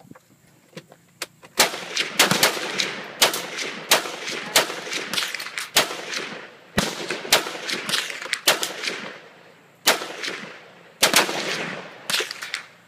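Rifle gunfire: a long run of shots at uneven spacing, sometimes two or three close together, each crack followed by a ringing echo. The shots begin about one and a half seconds in.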